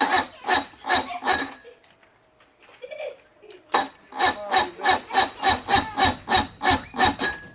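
Electric starter cranking a 60-horsepower Evinrude two-stroke outboard in two bursts, a short one and then a longer one after a pause, with a rhythmic chug of about three beats a second over the starter's whine. The engine turns over but does not catch.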